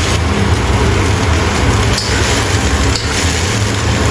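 Steady low hum and hiss of stovetop cooking as shimeji mushrooms fry in a wok. A spoon clicks lightly against the wok or bowl about two seconds in and again about three seconds in.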